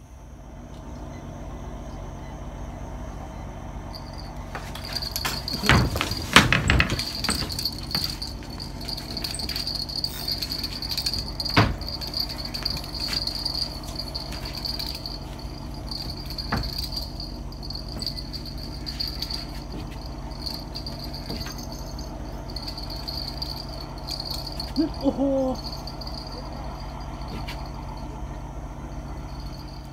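Night insects trilling at a steady high pitch from about four seconds in, over a steady low hum, with a few sharp knocks of handled fishing tackle around six and twelve seconds in.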